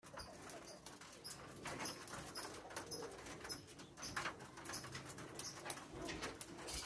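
A diamond dove pecking millet seed from a plastic feeder: a run of faint, irregular clicking taps of its beak against seed and feeder, several a second.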